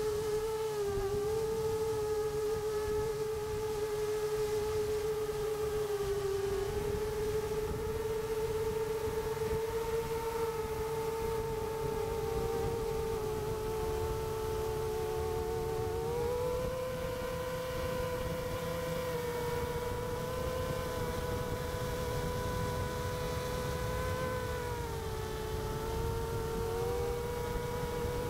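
Seven-inch FPV quadcopter's motors and propellers whining steadily in flight, the pitch dipping and rising a few times, with a low rushing noise underneath.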